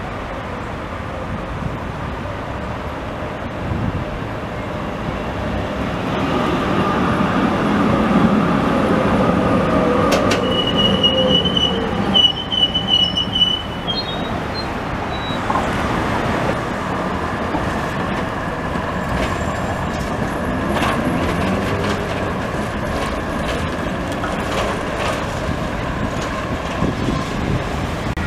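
Street tram rolling along its rails past the listener, a low rumble swelling to its loudest about eight seconds in. Its steel wheels squeal on the track in thin high tones that come and go, strongest between about ten and thirteen seconds in.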